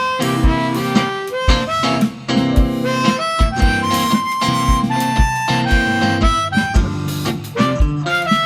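Blues band playing an instrumental break: a harmonica solo of held notes over guitar and a steady drum beat.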